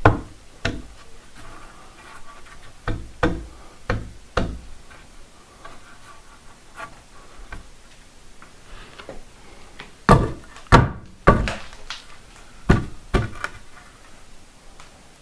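Irregular sharp wooden knocks and taps, one group in the first few seconds and another about ten seconds in, with quieter handling noise between: timber being handled and knocked into position.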